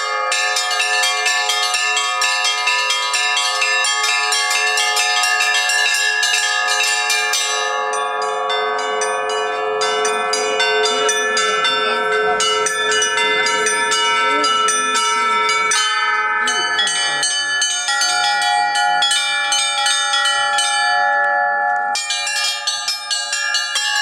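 Russian church bells being rung: quick repeated strokes on small high bells over the lasting tones of larger bells. The quick high strokes thin out about eight seconds in, leaving mostly the deeper ringing tones, and pick up densely again near the end.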